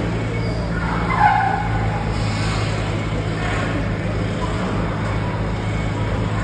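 Steady low machinery hum with a motor-like drone, running evenly through the market hall, with brief faint voices about a second in.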